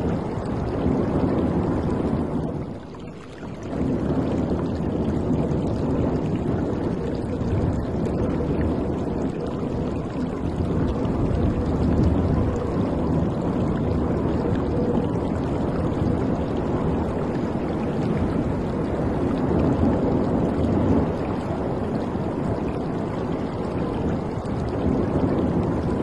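Steady rush and splash of water against the side of a moving boat, mixed with wind on the microphone, dipping briefly about three seconds in.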